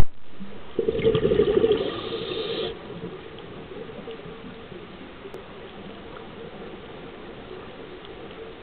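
Scuba diver's exhaled breath bubbling out through the regulator for about two seconds, heard through the underwater camera, after a sharp click at the very start. Then only a low, steady underwater background.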